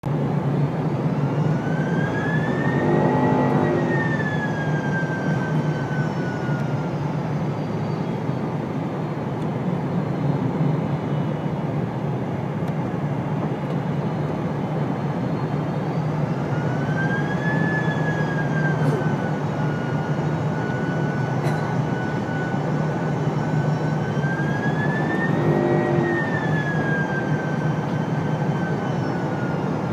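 Cabin noise inside a Boeing 787 airliner in flight: a steady rush of engine and airflow. Over it a high whine slowly rises and falls in pitch, once near the start and again through the second half.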